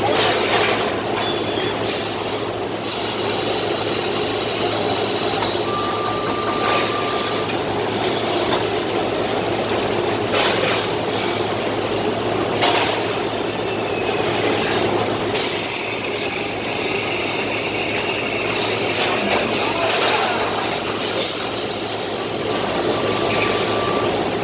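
Machinery running steadily with a constant low hum, with a few short knocks and brief tones over it.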